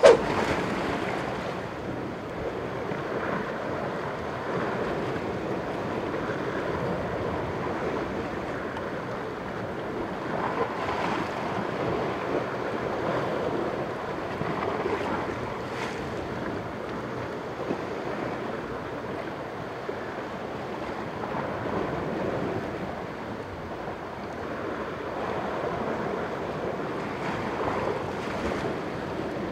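Sea surf washing against a rocky cliff, a steady wash with wind buffeting the microphone. A sharp knock right at the start.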